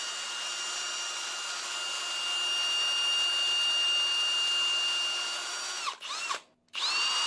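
Cordless drill running at a steady speed, drilling a front axle hole through the wooden pinewood derby car body via a drill-jig bushing. About six seconds in the motor stops and winds down, gives a short blip, then starts up again just before the end.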